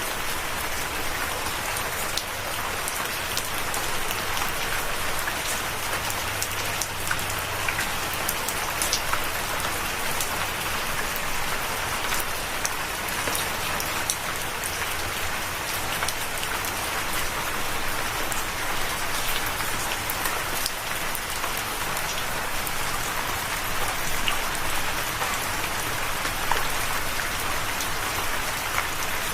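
Steady rain falling and pattering on a surface, with many small drop ticks throughout.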